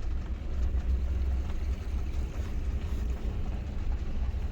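Steady low rumble of a vehicle driving, road and engine noise heard from inside the cab.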